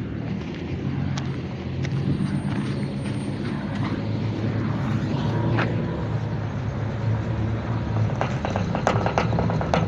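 A vehicle engine running steadily with a low hum, with scattered sharp clicks and a quick run of rattling ticks near the end.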